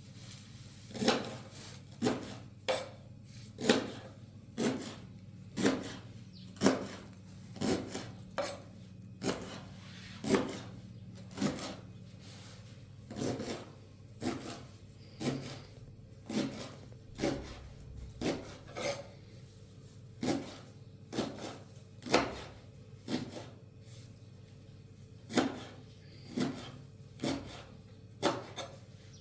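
Repeated short scraping strokes, about one a second and fairly even, like rasping or rubbing on wood, over a steady low hum.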